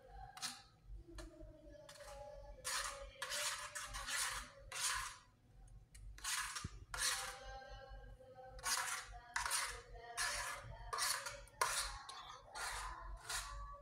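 A fork beating eggs in a stainless steel container, scraping and clinking against the metal in quick, irregular strokes, with a short lull near the middle.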